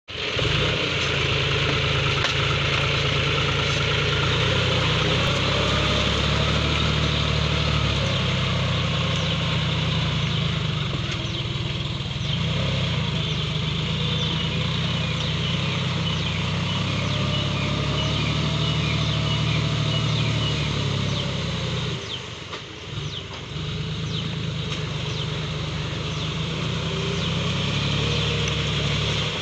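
John Deere 5036D tractor's three-cylinder diesel engine running steadily under load as it drags a tined implement through flooded paddy mud. Its sound drops away briefly about three quarters of the way through, then comes back at the same steady level.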